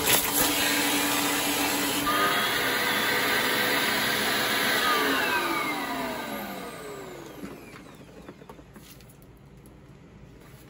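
Riccar 8905 vacuum cleaner running at full power. About five seconds in it is switched off, and its motor whine falls in pitch as the motor winds down over two or three seconds.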